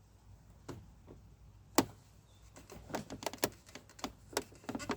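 Scattered sharp clicks and knocks of small hard parts being handled and set down, one louder knock about two seconds in and a quicker run of clicks near the end.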